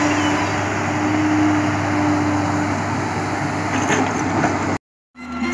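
JCB JS tracked excavator's diesel engine running steadily under working load as it digs, with a few knocks of earth and stones in the bucket about four seconds in. The sound cuts off suddenly near the end.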